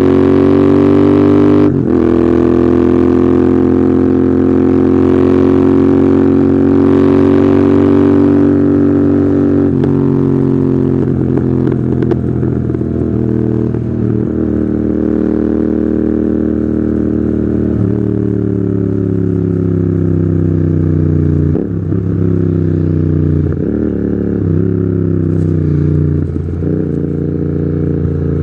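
Royal Enfield Continental GT 650's 648 cc parallel-twin running through Red Rooster aftermarket exhausts on the move, holding a steady pitch for long stretches. There are short breaks about 2, 10 and 18 seconds in, and a quick run of pitch dips near the end.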